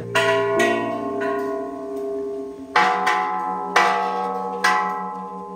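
Hanging bronze temple bells struck by hand with a wooden striker, about six strikes, each left ringing with several overlapping tones that slowly fade.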